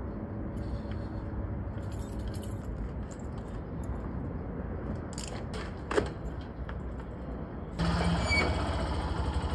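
Small motorcycle engine starting about eight seconds in and then running at idle, preceded by a few light clicks and rattles of keys and helmet being handled over a steady low rumble.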